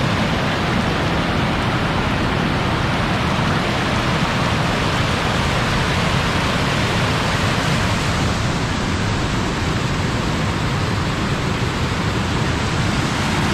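River water rushing fast at a dam, a loud, steady rush.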